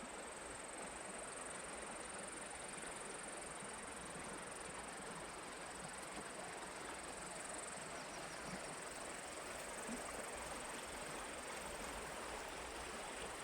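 Insects trilling continuously in one steady, high-pitched band over a soft, even outdoor hiss.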